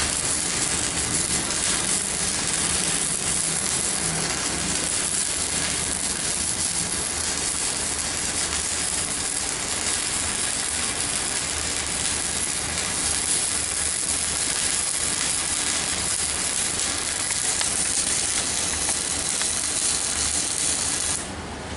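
Stick arc welding with a 4 mm electrode on a CNR 120 MOSFET inverter welder: the arc's steady crackling hiss, which cuts off suddenly near the end as the arc stops.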